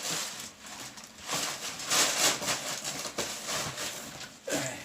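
Rustling and rubbing of packing material and box contents being handled and searched through, in irregular scratchy swells.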